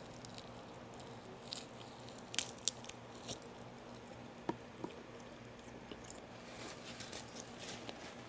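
Close-up eating sounds of a person biting into and chewing a piece of native chicken adobo held in the hands, heard as scattered short, sharp clicks, the two loudest about two and a half seconds in.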